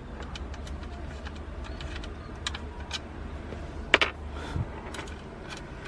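Small clicks and rattles of a plug and its cable being worked loose at a car power inverter, with one sharper click about four seconds in, over a steady low hum.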